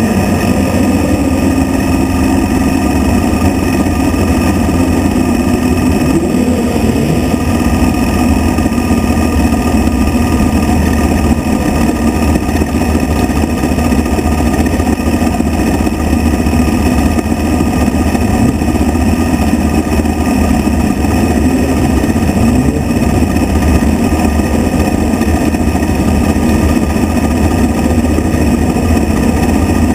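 Midget race car's engine heard from on board, running loud and near steady at racing speed on dirt, its pitch rising and falling slightly through the laps.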